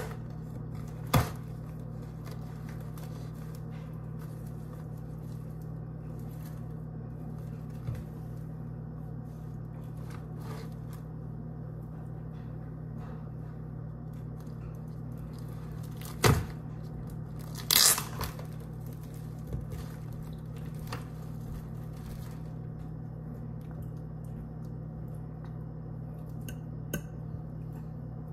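A steady low electrical hum throughout, with a few sharp knocks and clatters of kitchenware as raw chicken thighs are put into a crowded mixing bowl. The loudest is a short double clatter about two-thirds of the way through.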